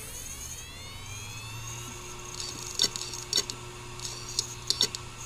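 A failing secondhand 2 TB Seagate hard drive spinning up with a rising whine, then its heads clicking sharply several times from about three seconds in. This is the repeating click of a dead drive that shuts itself off.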